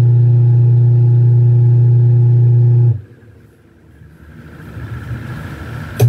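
Washing machine motor, test-run without its drive belt, humming steadily; about halfway through the hum cuts off abruptly, a fainter noise builds for a couple of seconds, and the hum comes back on at the end. The break fits the wash timer switching the motor off between its forward and reverse rotations.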